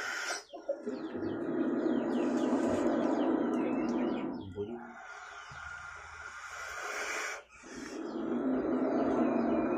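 King cobra growling: three long, low, rasping hisses, each lasting about three seconds with a short break between, the middle one quieter. Small birds chirp in the background throughout.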